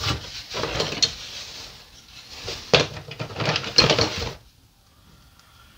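Hands rummaging through a cardboard box of toys: rustling and crinkling of cardboard and packaging, with a couple of sharper crinkles around three and four seconds in, stopping about four and a half seconds in.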